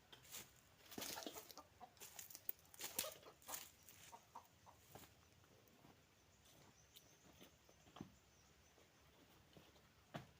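Faint clucking of a chicken, a run of short calls in the first half, then near silence.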